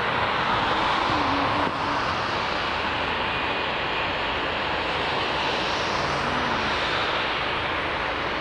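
Boeing 787-8 Dreamliner's Rolls-Royce Trent 1000 turbofans running with a steady jet roar and hiss as the airliner rolls slowly along the runway.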